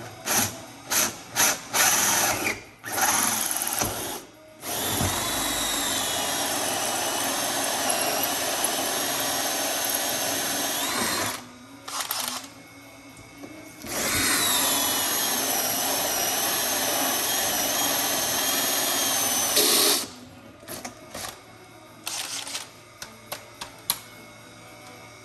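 Cordless drill drilling into a caravan's side wall. First a few short trigger pulls, then two long runs of about six seconds each, its motor whine wavering in pitch under load. Near the end come a few short bursts and clicks.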